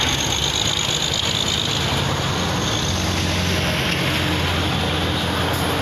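Steady highway traffic noise: cars and trucks passing close by, a rush of tyres and engines over a low engine drone that grows a little stronger about halfway through.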